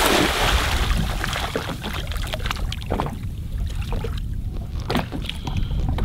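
Sea water splashing and slapping against the side of an inflatable boat, with a louder rush of spray in the first second and a steady wind rumble on the microphone.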